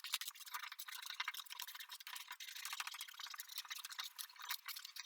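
Masking tape being rubbed flat by hand onto a metal car body panel: a dense, rapid scratchy rubbing and crackling.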